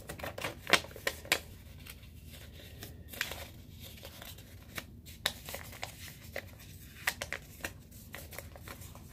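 A small paper sticky note being folded and creased by hand: soft rustling and crinkling with scattered little clicks, the sharpest in the first second or so.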